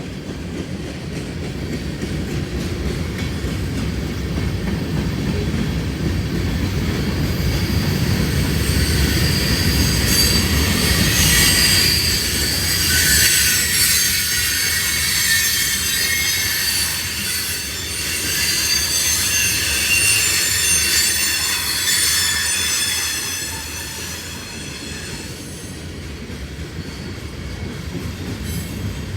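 Train rolling past with a steady low rumble of wheels on rail. From about ten seconds in, the wheels squeal in high, wavering tones for some fifteen seconds before the squeal fades.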